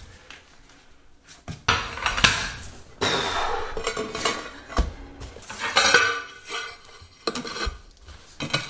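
Ceramic floor tile being set by hand into mortar: it scrapes and clinks against the neighbouring tiles as it is slid and pressed into place. A series of irregular scrapes and clicks, starting about a second and a half in, with one sharper knock midway.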